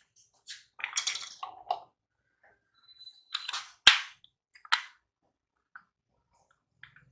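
Kitchen utensils and containers being handled: a few short scrapes and knocks, with one sharp click about four seconds in.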